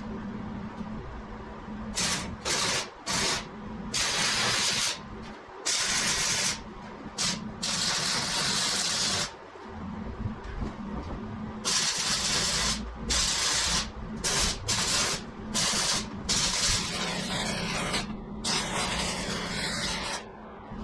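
Welding arc sizzling in a series of bursts, some short blips and some runs of one to two seconds, as the welds on a steel land plane are finished. A steady low hum runs underneath.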